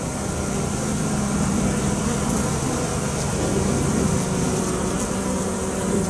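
Honeybees humming steadily over the open hive's top bars, a low even drone with a few fainter higher tones.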